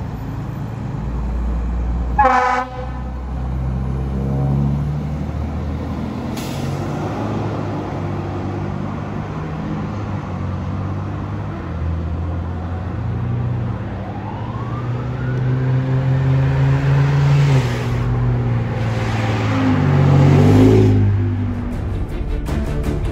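Pierce Enforcer fire engine pulling out on a call, its diesel engine running and revving, with one short air-horn blast about two seconds in. A siren rises and falls faintly in the middle, and the engine gets louder near the end as the truck comes closer.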